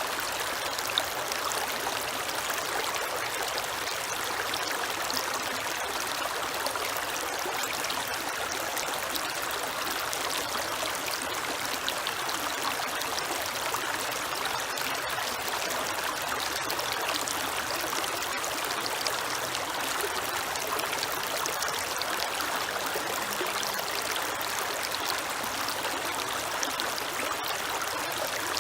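A creek running over rocks: a steady rush of flowing water with small splashes and trickles throughout.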